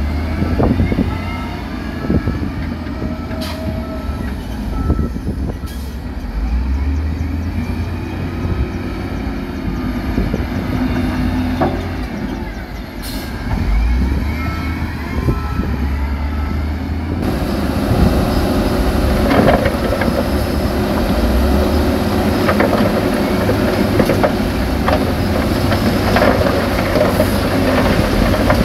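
Heavy diesel dump-truck engines working, a deep rumble that rises and falls with the revs. About seventeen seconds in, the sound changes abruptly to a louder, noisier rushing rumble over the engines.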